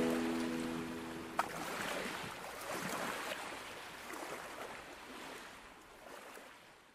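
The last held notes of acoustic guitar music die away, with a single small click about a second and a half in; then water lapping in soft, uneven swells fades out to silence.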